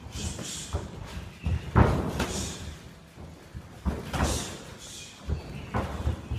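Muay Thai kicks and punches landing on Thai pads: a string of sharp slaps and thuds, the loudest about two seconds in, with short hisses between strikes.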